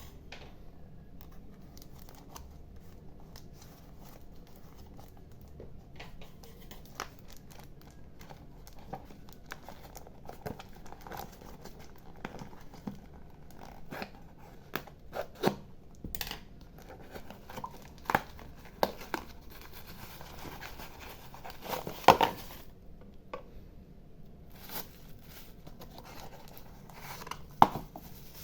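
Parcel packaging being opened by hand: plastic wrap and paper crinkling and tearing, with scattered sharp clicks and a few louder knocks, the loudest a little past halfway and near the end.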